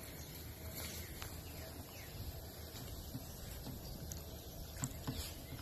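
Puppies scuffling on a board laid over a tyre: a few faint knocks, clearest near the end, over a steady low outdoor rumble.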